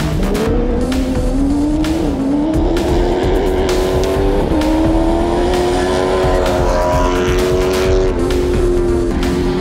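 Rally car engine running at high revs, its pitch climbing over the first few seconds and then holding steady, with gravel crackling under the tyres. Background music is mixed in.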